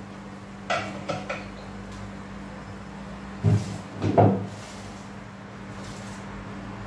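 A metal pressure cooker lid set down with a few light clinks, then two loud knocks of a plate against the pot as chopped onion is tipped into the pressure cooker. A steady low hum runs underneath.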